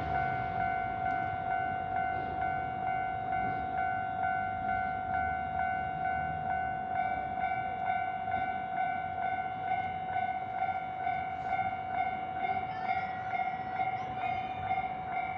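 Japanese railway level-crossing alarm ringing its repeated electronic tone, about two strokes a second. A second crossing alarm with a higher tone joins about halfway through, and brief high whistling tones come in near the end.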